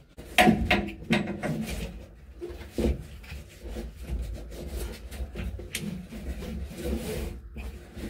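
Seat belt and its mounting hardware handled against the pickup cab's interior: irregular rubbing, knocks and clicks, the loudest about half a second in.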